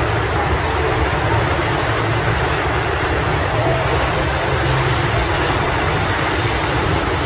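Steady rushing of falling and splashing water, with a low hum underneath.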